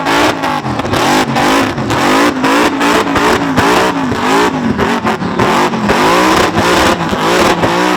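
Supercharged one-tonner ute engine being revved hard in a burnout. The pitch rises and falls in quick repeated sweeps over a constant harsh hiss of spinning tyres.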